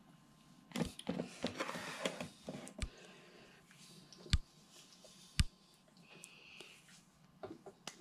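Handling noises at a desk: about a second and a half of rustling, then three sharp clicks or knocks spread over the next few seconds, the middle one loudest.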